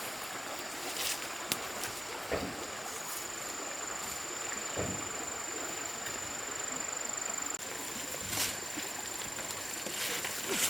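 Outdoor ambience: a steady hiss with a thin, high, steady whine and a few scattered soft clicks and knocks.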